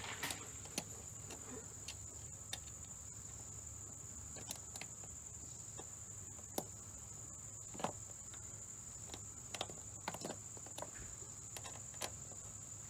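Faint, scattered metallic clicks and taps as an Allen wrench works the small screws holding the power chain to the SAPPER automatic DCP. A steady high-pitched whine sounds throughout.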